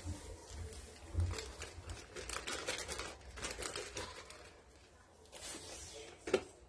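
Rustling and crinkling handling sounds, irregular, with scattered light clicks.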